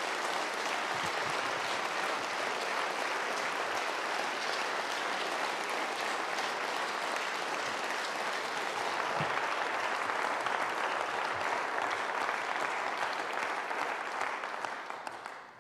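Audience applauding: a dense, steady patter of many hands clapping that dies away near the end.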